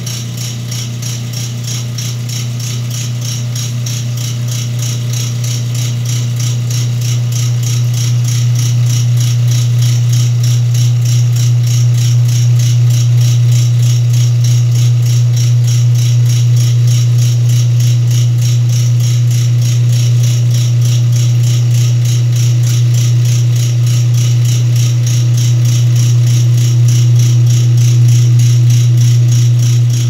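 Whirlpool top-load washing machine draining its tub: a steady motor and pump hum with a fast, even rattle, growing louder over the first dozen seconds and then holding steady.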